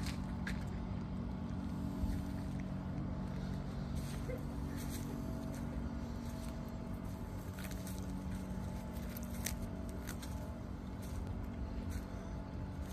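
Outdoor ambience recorded on a handheld phone while walking: a steady low hum with a few faint steady tones, and scattered sharp clicks and taps through it.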